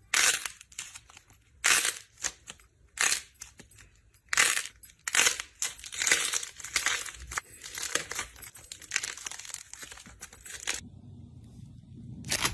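Slime being squeezed and pressed by hand, giving an irregular run of sharp crackles and pops. Near the end it drops to a quiet low hum broken by one more pop.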